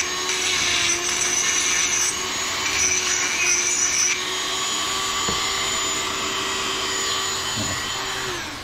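Dremel rotary tool on a flex shaft running at high speed, a burr bit grinding the edges of drilled holes in an aluminium tube to deburr them; the grinding is harshest in the first few seconds. Near the end the motor is switched off and its whine falls in pitch as it spins down.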